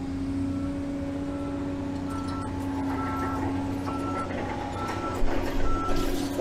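Excavator engine running steadily, heard from inside the cab, with a backup alarm beeping about once a second. Near the end comes a short burst of clattering.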